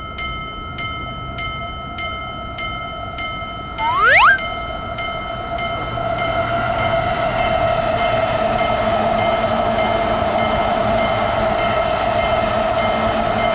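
Japanese railroad crossing warning bell ringing steadily, a bit under two strikes a second. About four seconds in a train horn sounds once, briefly, rising in pitch. Then the running noise of an approaching train builds up and carries on under the bell.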